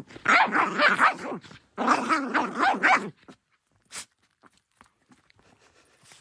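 A dog giving two long, wavering vocal calls, a mix of barking and howl-like yowling, one after the other, then a single short click.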